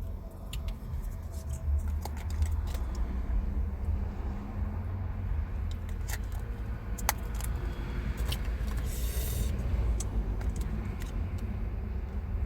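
Small clicks, taps and scrapes of tacos and their packaging being handled, with a crinkling rustle a little past the middle, over a steady low rumble inside a car.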